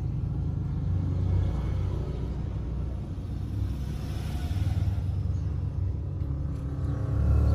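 Ginger tabby cat purring while being stroked: a steady, low rumble.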